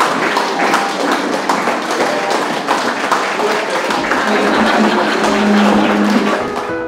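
A roomful of wedding guests clapping steadily, with voices mixed in.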